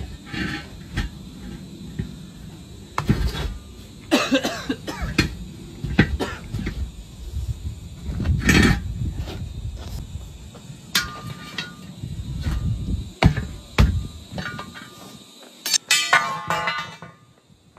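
Irregular metal knocks and clanks from work on a large truck tyre and its wheel, several of them ringing briefly, over a low steady background noise.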